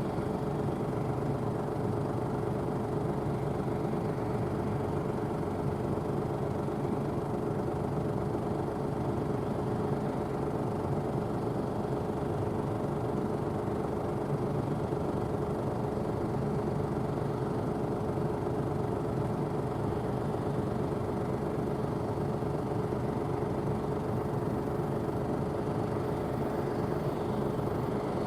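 Claas Tucano 570 combine harvester running steadily while harvesting barley: an even machine drone with a constant mid-pitched hum.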